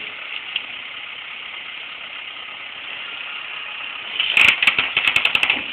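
Compact tractor's engine running steadily while its front loader pushes against the playhouse. About four seconds in, a quick run of sharp cracks and snaps, louder than the engine, as the structure starts to break up.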